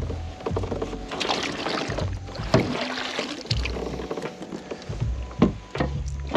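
Water splashing and sharp knocks against a fishing kayak while a just-caught bass is landed and handled. The loudest knocks come about two and a half seconds in and again near the end.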